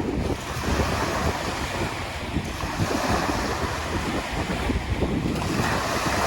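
Light waves lapping and washing on the Lake Superior shore, with steady wind buffeting the microphone.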